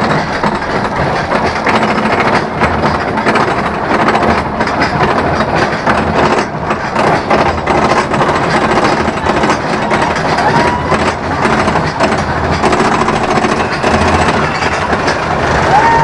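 Roller coaster train being pulled up its chain lift hill: a steady, rapid mechanical clatter of the lift chain and the ratcheting anti-rollback. Riders yell briefly about ten seconds in, and the screaming starts near the end as the train crests the top.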